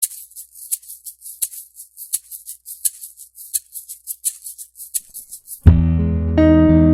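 Background music: a quick rhythm of light, high percussion ticks alone, then the full track with bass and guitar comes in suddenly near the end.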